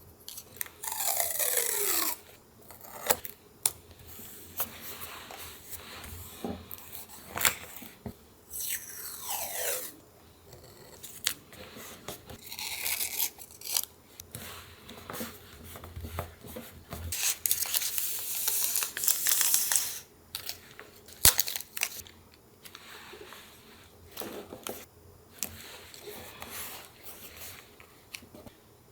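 Paper crafting sounds: paper torn and rustled, with scattered taps and clicks. Two longer tearing strokes fall in pitch, one near the start and one about nine seconds in.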